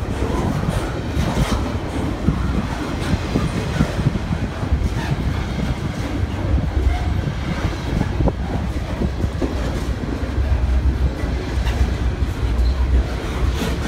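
Double-stack intermodal freight train's loaded well cars rolling past: a steady heavy rumble of steel wheels on rail, with frequent short clicks and clacks from the wheels.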